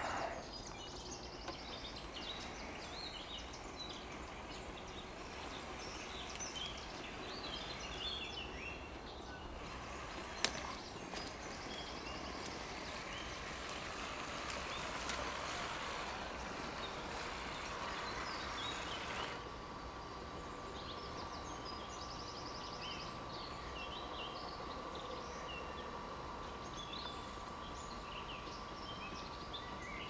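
Woodland ambience: scattered short bird calls over a steady background hiss. A single sharp click comes about a third of the way in, and a thin steady tone comes in about two-thirds of the way through.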